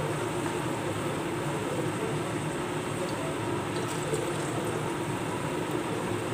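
Steady whirring hum of a kitchen range hood fan over sweet potato slices sizzling in frying oil, with a few faint light clicks of a spatula in the pan about three to four seconds in.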